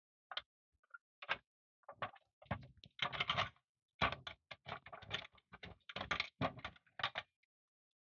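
Rusty steel base plate of a toy van being pried off with a flat screwdriver and lifted away: a run of irregular metal clicks, scrapes and rattles, busiest in the second half and stopping shortly before the end.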